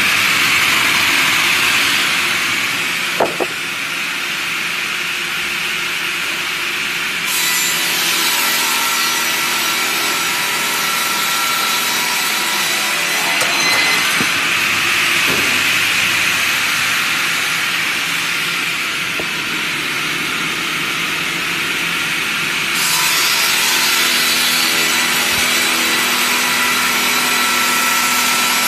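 Electric round-log push saw's circular blade ripping a log lengthwise into boards: a continuous rasping cut over the steady whine of the spinning blade and its motor. There is a sharp knock about three seconds in, and the sound changes abruptly twice.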